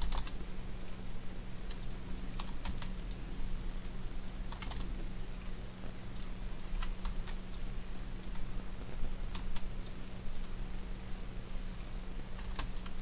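Computer keyboard keystrokes and mouse clicks, as single clicks and short clusters of two or three every second or few, over a steady low hum.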